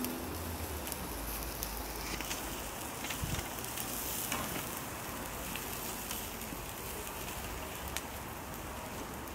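Skewered turkey meat sizzling over hot charcoal on a mangal grill, a steady hiss, with a few light clicks as the metal skewers are handled.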